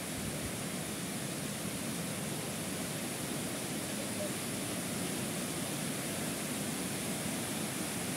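Steady rushing of flowing water from a forest stream, an even hiss with no breaks.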